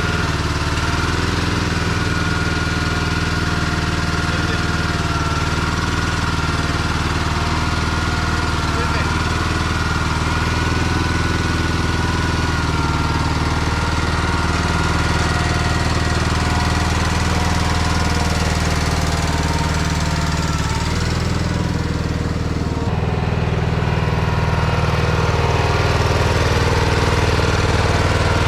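Case 446 garden tractor engine running steadily after being started on bad gas. Its note shifts a little about three-quarters of the way through.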